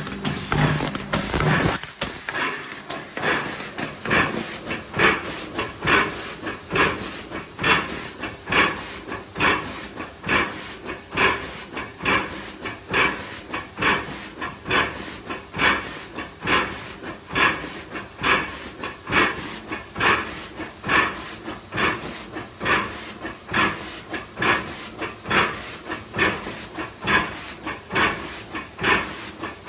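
2011 IMA CD180 filling machine running its cycle: rhythmic hisses of air and mechanical clacks, repeating a few times a second. A low hum stops about two seconds in.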